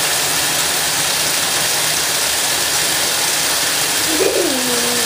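Bathtub tap running, a steady rush of water into the tub.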